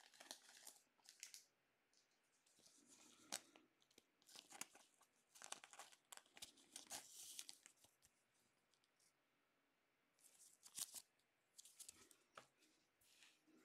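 Faint crinkling and rustling of a thin clear plastic trading-card sleeve as a card is handled, in several short bursts with quiet gaps between them.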